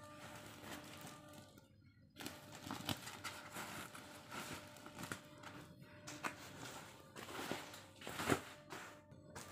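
Woven polypropylene sacks rustling and crinkling as they are handled and moved, in irregular bursts with a short hush about two seconds in and a louder rustle near the end.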